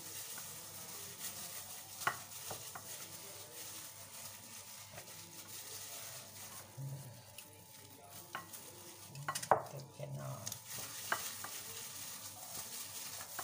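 A gloved hand working raw chicken pieces into a thick, wet marinade of green chili and ginger-garlic paste, egg white and flour in a bowl: soft squishing and stirring, with a few light clicks against the glass.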